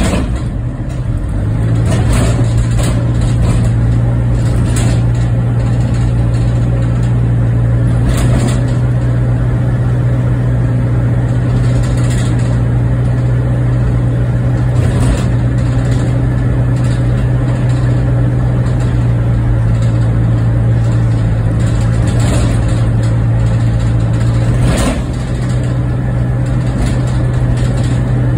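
A car's engine and tyre noise, heard from inside the car while it drives at a steady pace: a loud, even low hum with road rumble. A few short knocks from bumps in the road are scattered through it.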